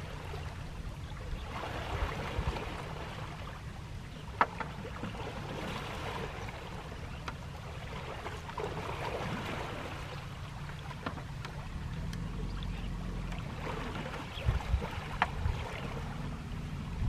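Water sloshing and splashing in swells around an Asian elephant's legs as she wades slowly through a shallow river, over a steady low rumble, with a few sharp clicks.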